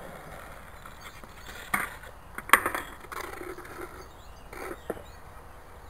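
Skateboard knocking on the concrete of a skatepark bowl: a few sharp clacks and rattles, the loudest about two and a half seconds in, with another pair near five seconds.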